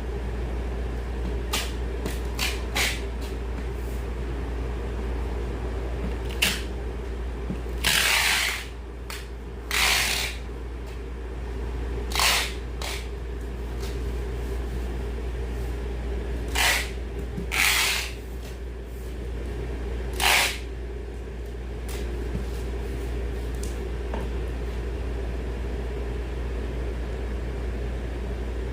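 Boxes of kabocha squash being packed: about six short rasping scrapes, each roughly half a second, with a few light clicks, over a steady low hum.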